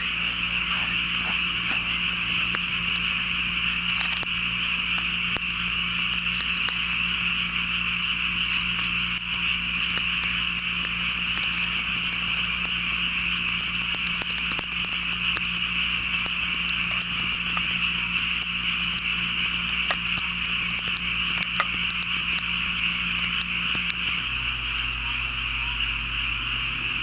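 Dense chorus of frogs calling continuously, with scattered faint clicks and crackles over it.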